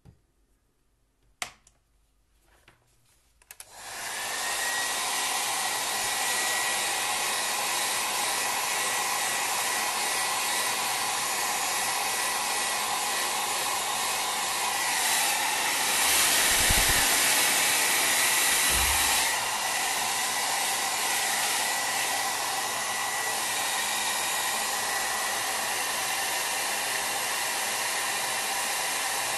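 Hair dryer switched on a few seconds in and blowing steadily, a rush of air with a thin high whine, used to dry a freshly painted watercolour. It gets a little louder for a few seconds midway.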